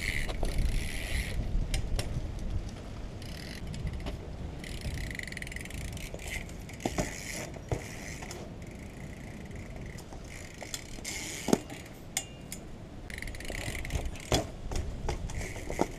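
BMX bike's rear hub freewheel ticking as it coasts, with tyre noise on rubber tiles and a few sharp knocks from the bike, the sharpest about eleven and a half seconds in.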